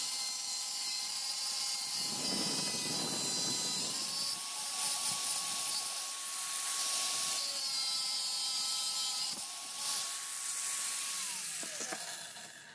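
Angle grinder with a cutting disc running at speed and cutting into a steel spade drill bit, a steady high whine over a hiss of grinding. Near the end the whine falls in pitch as the disc spins down.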